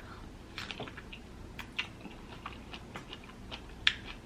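Chewing fresh fruit close to the microphone: a run of soft, wet mouth clicks and smacks, with one sharper click near the end.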